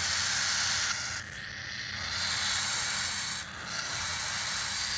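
Cockatiel chicks giving a continuous raspy, hissing begging noise while being syringe-fed. It breaks off briefly about a second in and again about three and a half seconds in.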